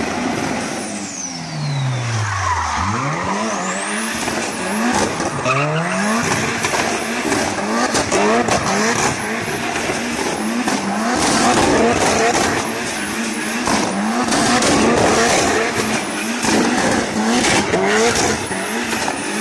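Racing car engine revving hard, its pitch falling once then repeatedly climbing as it runs up through the gears, with tyres squealing and skidding.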